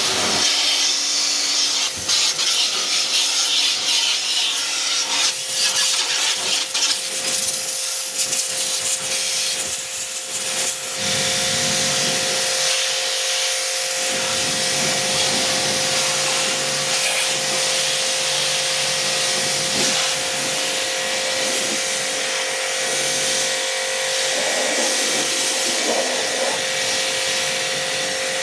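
Agaro Supreme pressure washer running, its motor holding a steady whine under the loud, steady hiss of the water jet spraying.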